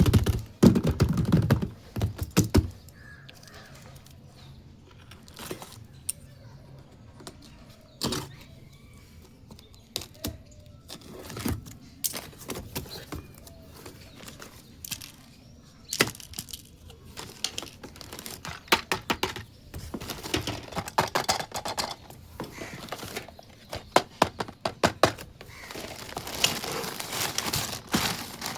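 Small plastic toy kitchen pieces being handled and set down: scattered clicks, taps and light rattles, densest in the first couple of seconds and in quick runs later on.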